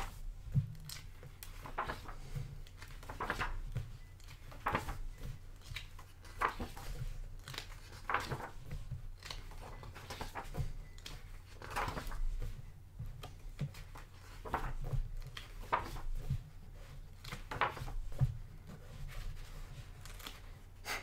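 Paper pages of a thick hardcover art book being turned one after another, a short papery swish every second or two.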